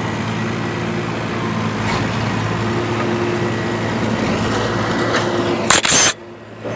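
Tractor engine running steadily while tilling a field, a low even hum. Near the end a brief loud burst of noise cuts in, and the sound then drops away for a moment.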